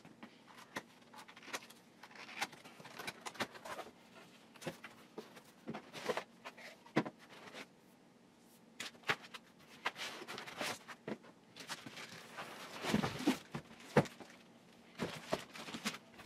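Unpacking noises from a cardboard box and plastic wrapping as a heavy expansion battery is lifted out: scattered rustles, scrapes and knocks, busiest and loudest about 13 seconds in.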